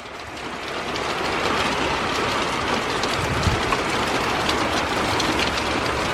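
Heavy thunderstorm downpour with a low rumble of thunder rolling through. The noise swells over the first second and a half, then holds steady.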